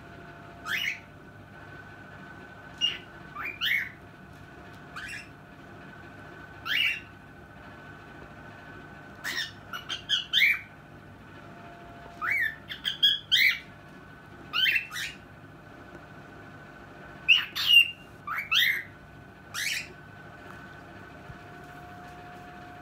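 Cockatiel giving short, loud rising calls again and again, some single and some in quick clusters of two to four, over a faint steady hum.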